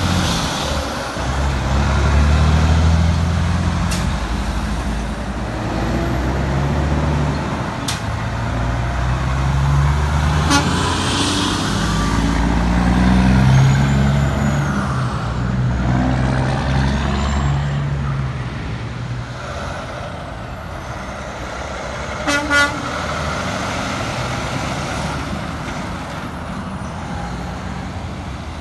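Heavy diesel semi trucks, a Kenworth and a long-hood Peterbilt among them, accelerating past one after another, their engine note climbing and dropping back several times as they shift up through the gears. A short double horn toot sounds about two-thirds of the way through.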